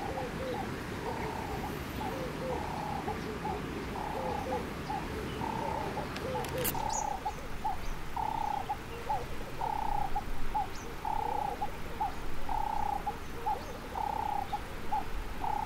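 A dove cooing over and over in a rhythm of short and longer notes, over a steady hiss of wind and river water. In the first part the sound comes through the Sony a6000 camera's built-in microphone; after a click about seven seconds in, it comes through the Sony ECM-XYST1M stereo microphone.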